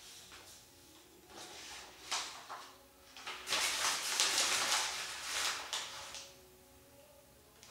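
A sheet of paper being crumpled and squeezed into a ball in the hands, crackling and rustling. A few light rustles come first, then a longer, loudest stretch of crumpling from about three and a half seconds in until about six seconds.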